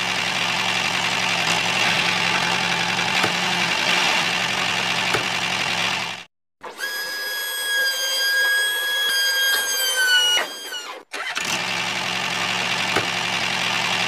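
Small electric motors of a homemade toy tractor: a steady buzzing whir with gear noise, broken by a short gap, then a higher steady whine that drops in pitch and stops as the trailer tips its load of soil, then the buzzing whir again.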